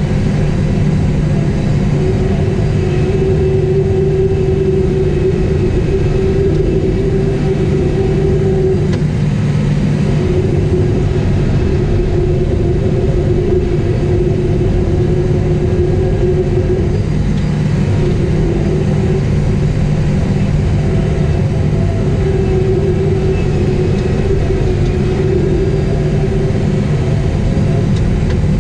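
Caterpillar 973C track loader's diesel engine running steadily under load, heard from inside the cab. A higher tone above the drone swells and fades every few seconds as the machine works.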